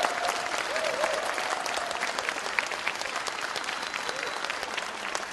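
Concert audience applauding, with a few voices cheering over the first couple of seconds.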